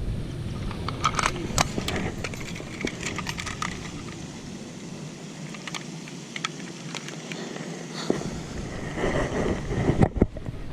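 Scattered sharp clicks and light rattles of a just-landed largemouth bass being handled and hung on a scale for weighing, over a steady outdoor hiss.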